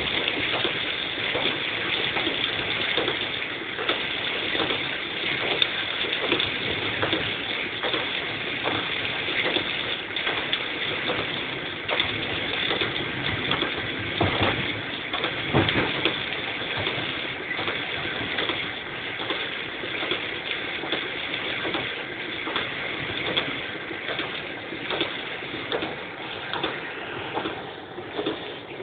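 Heavy rain pattering on a moving car's roof and windscreen, heard from inside the cabin, with the wet road noise of the tyres: a dense, steady wash of drops with many irregular ticks.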